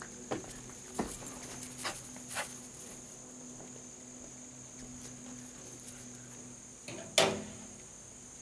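Steady, high-pitched chorus of insects singing. A few faint clicks come in the first couple of seconds, and one sharp knock about seven seconds in.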